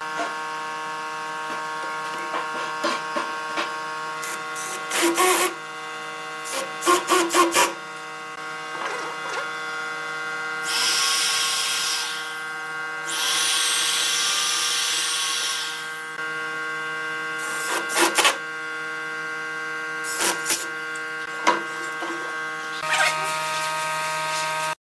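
Cordless drill running into the wooden slats of a chair frame in two bursts, one of about a second and one of about three seconds. Scattered clicks and knocks of wood being handled and a steady hum sit under it.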